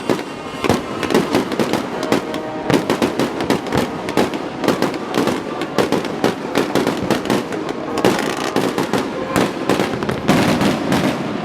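Fireworks display: a dense, irregular string of crackling pops and bangs, several a second.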